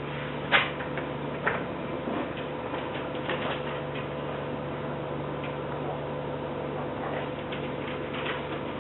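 CNC engraving machine running: a steady mechanical hum with irregular ticks and clicks, a louder click about half a second in and another about a second and a half in.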